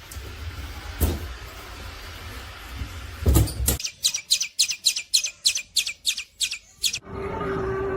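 A loud thump, then a rapid run of short, high bird chirps, about four a second for some three seconds, which stop abruptly.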